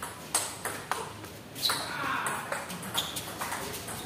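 Table tennis ball being struck back and forth in a doubles rally: a quick series of sharp clicks as it hits the paddles and the table.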